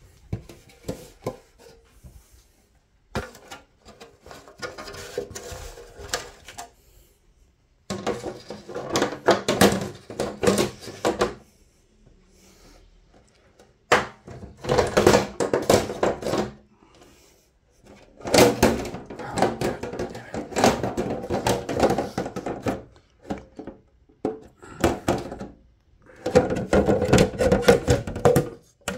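Clear plastic diffuser cover of an Industria 2500 light fitting being handled and pushed onto the fixture: repeated stretches of rattling, scraping and clicking plastic, with short pauses between them.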